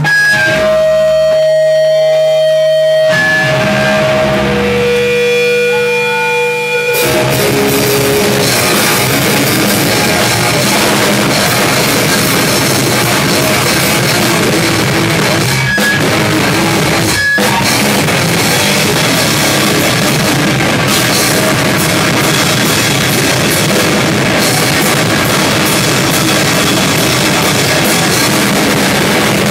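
Live rock band playing loud: for the first seven seconds a few held guitar notes ring on their own, then the drum kit and guitars come in together and play hard. Two very short stops land in the middle.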